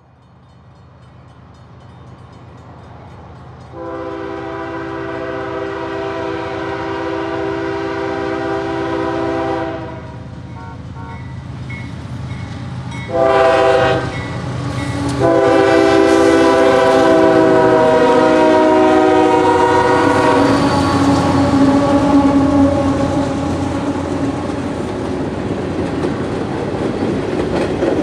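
Approaching Union Pacific diesel freight train sounding its multi-chime air horn: a long blast, a short blast about three seconds later, then another long blast. The rumble of the locomotives grows louder throughout. After the horn stops, the locomotives and a string of covered hopper cars pass close by with a loud, steady rumble and clatter of wheels on the rails.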